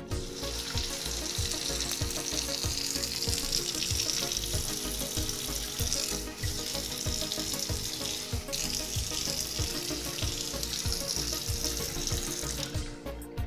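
Water running steadily from a kitchen faucet into the sink as a hissing rush, with two brief dips in the flow. Background music with a steady beat plays underneath.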